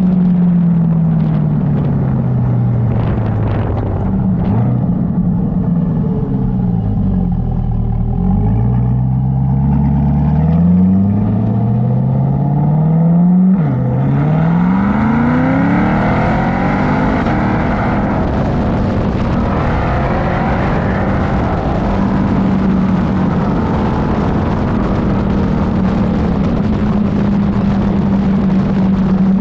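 Chevrolet C8 Corvette's 6.2-litre V8 running through a Corsa Xtreme exhaust while driving. The engine note falls, rises and falls again through several shifts. About 14 seconds in it dips sharply and climbs under acceleration, then settles into a steady drone with road and wind noise.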